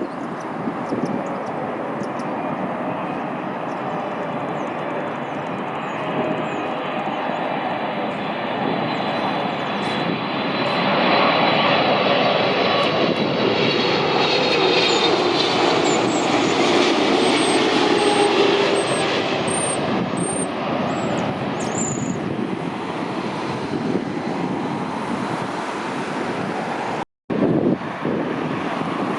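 A heavy jet airliner on final approach passes close by, its engine noise swelling to a peak about halfway through and then falling away. The engines' whine drops in pitch as the aircraft goes past. The sound cuts out briefly near the end.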